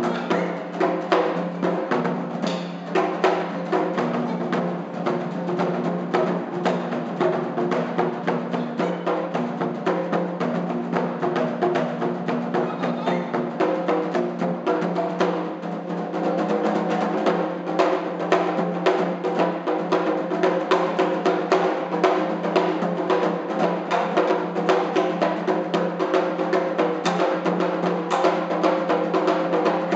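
Japanese taiko drums played by an ensemble in fast, continuous rhythmic strokes over held pitched notes. The drumming grows steadier and slightly louder about halfway through.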